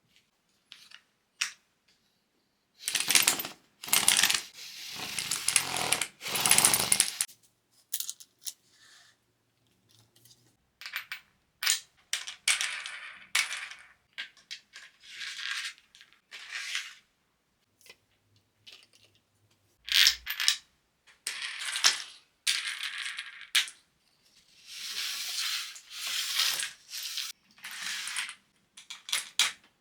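Irregular clatter, clicks and scraping of small parts and tools being handled on a workbench, in short separate bursts.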